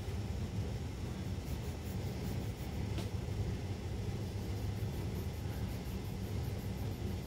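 A black coloured pencil shading on sketchbook paper, heard against a steady low rumble.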